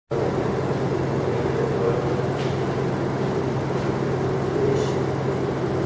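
Car engine idling steadily, with a faint tick or two.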